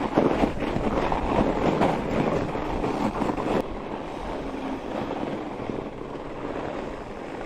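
Trek Farley 7 fat bike riding on firm groomed snow: a steady rush of tyre noise and wind on the microphone, with scattered crunches. It is louder at first and drops suddenly about three and a half seconds in.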